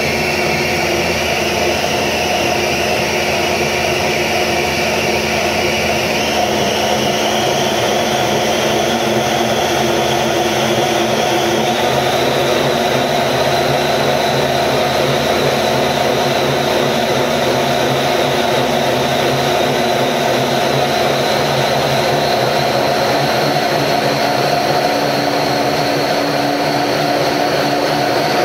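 Single-crank opposed-piston engine running steadily on an engine dynamometer: a loud, continuous mechanical whir under a high whine that climbs in pitch over about the first twelve seconds, then holds steady.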